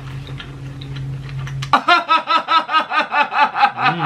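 A low, steady closed-mouth hum for nearly two seconds, then a man breaks into loud, rhythmic laughter at about five 'ha's a second that carries on to the end.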